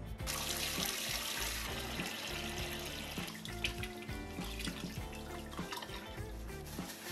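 Water pouring in a stream into a glass aquarium tank and splashing as it fills, starting about a quarter second in, with background music.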